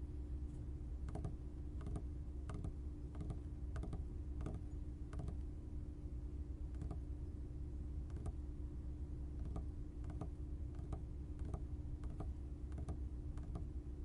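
Fingers rapping on a tabletop: separate knuckle or fingertip taps at about one to two a second, in an uneven rhythm, over a steady low hum.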